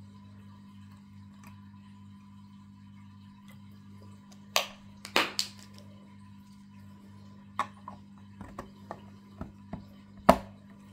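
Sharp clicks and knocks from plastic being handled, the loudest one near the end as the plastic lid is pressed onto a Sea-Monkeys tank. A low steady hum runs underneath.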